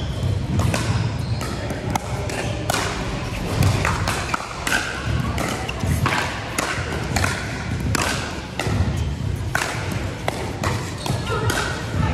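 Pickleball paddles hitting a plastic ball: a run of sharp pops, about two a second at uneven spacing, echoing in a large hall, with play on neighbouring courts mixed in.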